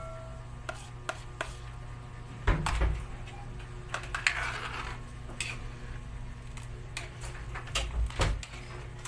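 A spoon clicking, knocking and scraping against a cooking pot, with scattered light clicks and a few heavier knocks, over a steady low hum.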